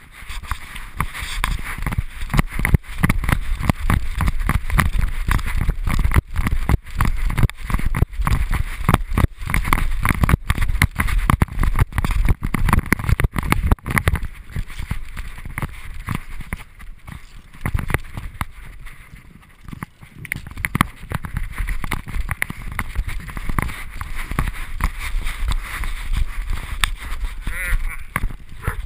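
Wind buffeting a camera mounted on a horse's tack, with a rapid, irregular string of knocks and rattles as the horse moves under the rider.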